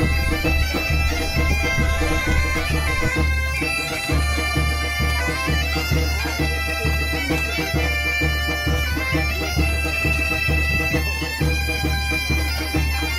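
Background music: a held, droning wind-instrument melody over a steady low beat.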